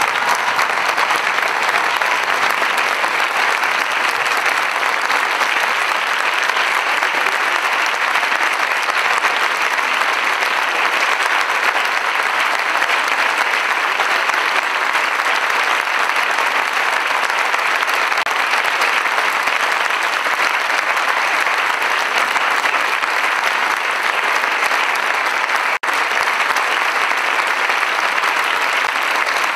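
Audience applauding steadily without a break, with a momentary dropout in the sound near the end.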